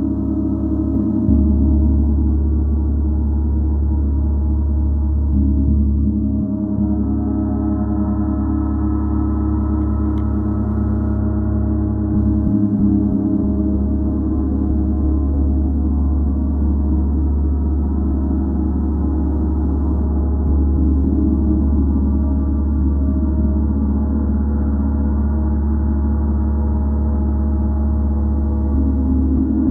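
Gong played continuously, giving a dense, sustained wash of many overlapping low tones that swells a little now and then without distinct separate strikes.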